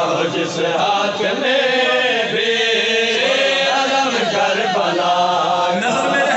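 A man chanting a devotional fazail recitation into a microphone, his amplified voice rising and falling in a sung line.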